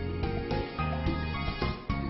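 Background music with held notes over a bass line and a steady beat of about two a second.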